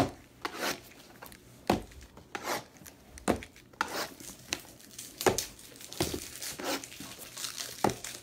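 Plastic wrapping crinkling and tearing as sealed boxes of basketball trading cards are unwrapped, in irregular short crackles and rustles.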